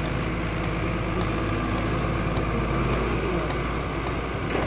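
Wheeled excavator's diesel engine running steadily as the machine works the dirt mound, with a faint knock near the end.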